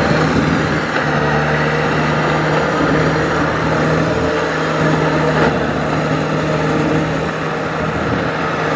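Diesel engine of a farm machine running at a steady speed, its pitch holding even.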